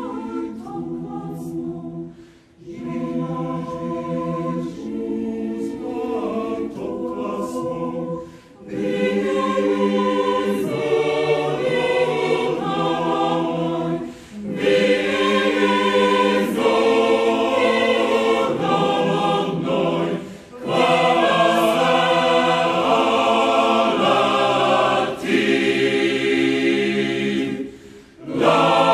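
Mixed choir of men's and women's voices singing a cappella, in phrases separated by short breathing pauses about every six seconds; the singing grows louder about nine seconds in and stays at that fuller level.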